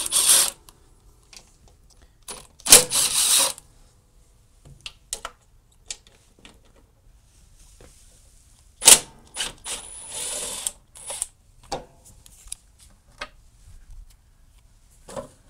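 Short runs of a cordless drill backing out the 3/8-inch bolts of a lawn tractor's mower-deck belt cover: a brief burst at the start, a longer one about three seconds in and more around ten seconds. In between, small clicks and rattles of the bolts and the plastic cover being handled.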